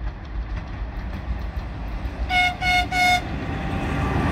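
Three short single-note blasts on an electric locomotive's horn, sounded as a signal, over the rumble of the approaching train, which grows louder toward the end.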